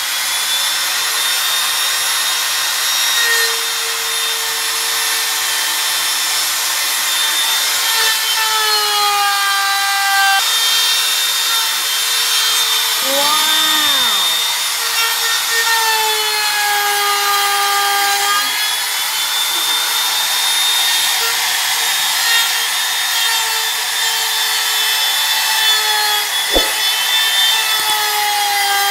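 Makita M3700 palm trimmer router running at full speed and cutting into wood: a loud, high-pitched whine whose pitch sags and recovers as the bit takes the cut, dipping sharply about halfway through. A single knock near the end.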